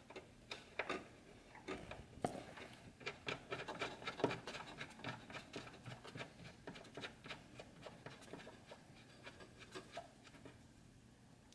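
Faint, irregular light clicks and rubbing as a rubber vibration mount is screwed by hand into its threaded mounting hole on the car's sheet-metal body.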